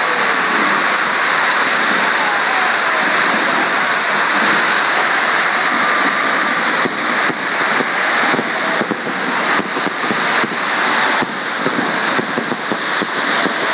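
Fireworks at close range: a loud, steady rushing hiss of spark fountains, with sharp crackles and pops coming thicker from about seven seconds in.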